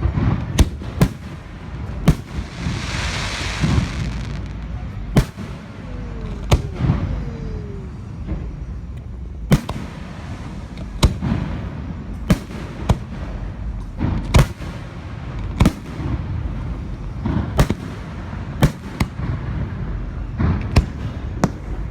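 Aerial fireworks shells bursting overhead: sharp booming bangs at irregular intervals of a second or two, with a crackling hiss from a crackle shell about three seconds in.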